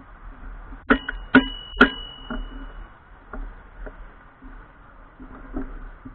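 Bicycle rattling over bumps: three sharp metallic knocks about a second in, one leaving a brief ringing ping, then lighter scattered clicks.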